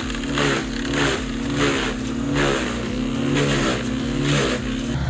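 Vermeer BC2100XL brush chipper running under load, its engine note wavering with a chopping pulse about twice a second as material is fed through.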